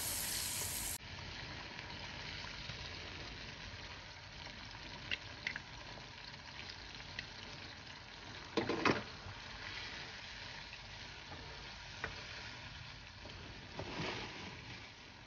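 Curry paste with pieces of mackerel in it sizzling gently in a frying pan, a steady low frying hiss. A wooden spatula scrapes against the pan twice, about nine seconds in and near the end, with a few light taps in between.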